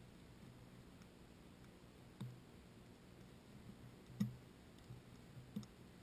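A few soft clicks and knocks, the loudest about four seconds in, over a quiet background.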